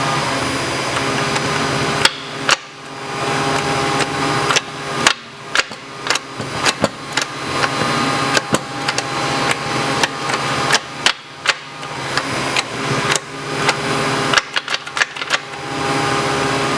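A steady mechanical hum overlaid by many sharp knocks at an irregular, often rapid pace, like hammering or tool impacts in a workshop.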